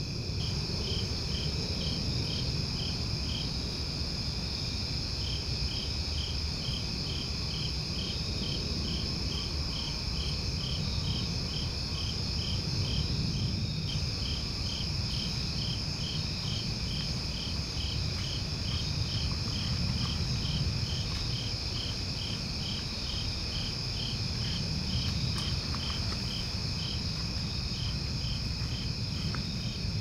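Night insect chorus: a steady high-pitched trill with a cricket chirping evenly about two to three times a second over it, pausing briefly a few seconds in, over a low background rumble.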